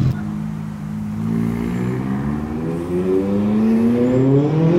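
Car engine running, then accelerating, its note rising steadily from about a second in.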